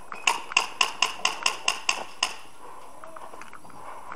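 Airsoft gun fired in quick single shots, about nine sharp cracks in just over two seconds, each with a brief ring.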